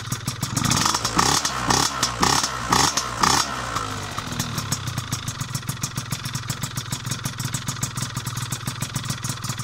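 Piaggio Zip SP scooter's two-stroke engine, fitted with a Malossi 172 cylinder kit, 35 mm Keihin PWK carburettor and PM Tuning PM59 expansion exhaust, warming up from a cold start. It is blipped about five times in quick succession over the first few seconds, then settles to a steady idle.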